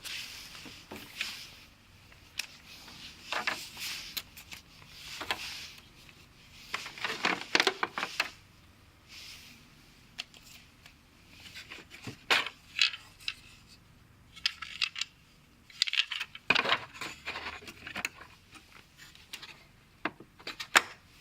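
Hard plastic clicks, knocks and rattles mixed with short bursts of rustling, coming in bunches with quiet pauses between: a power tool, its plastic case and its packaging being handled during unpacking.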